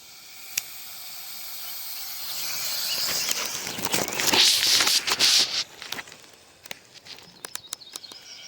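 Gopher snake hissing, a long breathy hiss that swells over several seconds and then fades, followed by a run of sharp clicks near the end.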